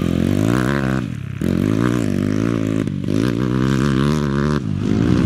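Dirt bike engine revving hard as the bike rides over a gravel track, its pitch rising and falling with the throttle. The revs break off briefly about a second in, again near three seconds and again about four and a half seconds in, as the throttle is shut and opened again.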